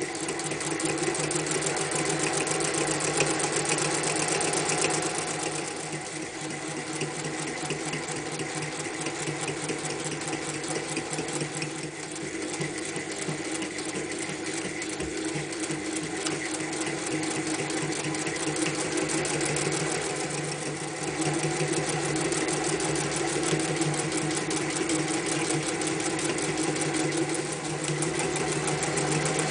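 A restored Singer 201 electric sewing machine running continuously with a fast, even clatter of needle strokes. It stitches through thick folded denim, then four layers of leather, then layers of sailcloth, easing off briefly a few times between runs.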